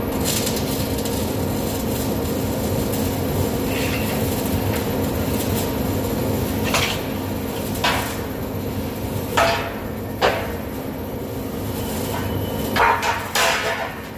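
Steady hum of workshop machinery, with several sharp metallic clangs and knocks of steel stock being handled, spaced irregularly from about halfway in and bunched near the end.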